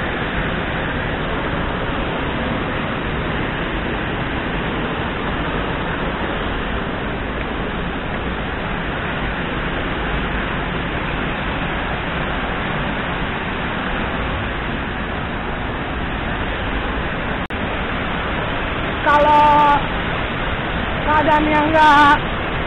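Curug Cikaso waterfall's steady rush of falling water, close by. Near the end, a woman's voice cuts in briefly twice, louder than the water.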